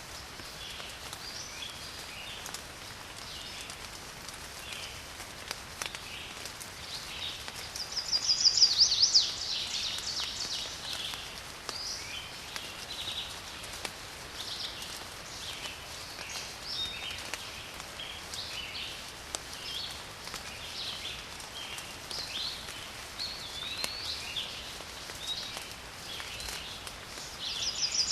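Steady patter of rain in a garden, with birds chirping and calling on and off. A louder, fast-trilled song breaks out about eight seconds in and again near the end.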